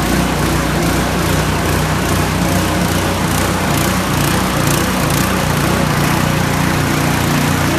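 Small petrol engine, of the red-and-white kind mounted beside the helicopter's skid, running steadily at a constant speed.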